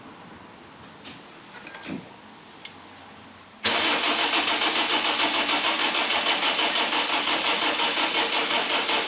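Car's starter motor cranking the engine, with a quick, even pulsing, starting suddenly and cut off after about five seconds without the engine catching.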